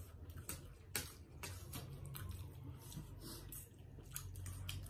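People chewing and slurping spicy instant noodles at close range, with many short wet clicks of mouths and lips.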